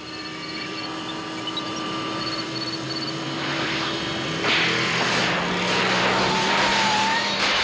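DeLorean time-machine car accelerating hard under remote control, its engine growing steadily louder as it speeds up. From about halfway in, a dense rushing, crackling noise builds over the engine as the car charges toward 88 mph and throws sparks.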